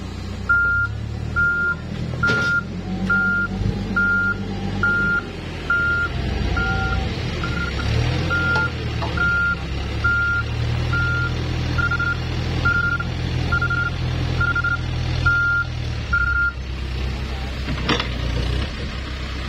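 A backup alarm beeping steadily, just under one beep a second, over the running diesel engine of a Case backhoe loader as it backs up; the beeps stop a few seconds before the end. A sharp knock comes about two seconds in and another near the end.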